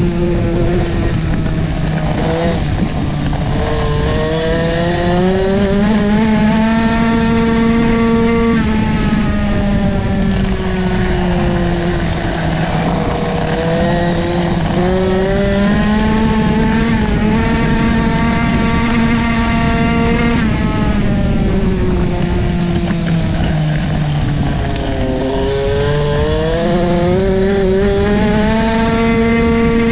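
Onboard sound of a 65cc two-stroke youth flat track motorcycle racing. The engine note climbs for several seconds down each straight, then drops as the rider backs off for the turns, about three times, over a steady rush of wind and dirt noise.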